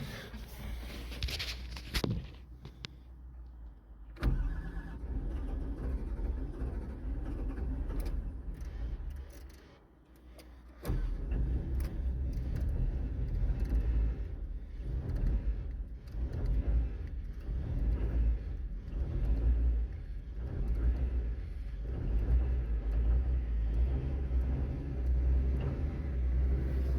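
Cold start of a Cat 315 excavator's Cat 3046 six-cylinder diesel, a hard start on a tired engine with over 15,000 hours. After a few clicks, the starter cranks it for about six seconds without it staying running; a second attempt about eleven seconds in brings it to life and it keeps running.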